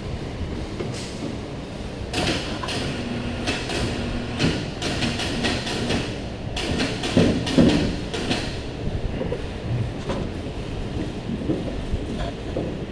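Fuel and electrical hoses being fed through rubber grommets in the side of a steel pickup bed. A quick run of rattles, scrapes and knocks starts about two seconds in and lasts until about eight seconds, with a few scattered knocks after, over a steady low background.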